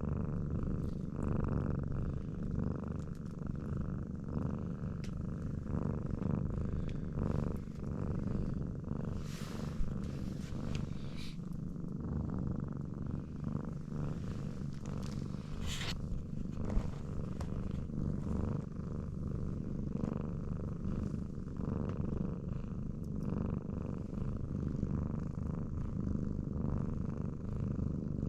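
Domestic cat purring steadily, with a couple of brief faint clicks partway through.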